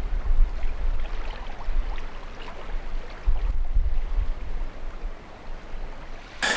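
River current flowing steadily, an even rushing of water, with wind rumbling unevenly on the microphone.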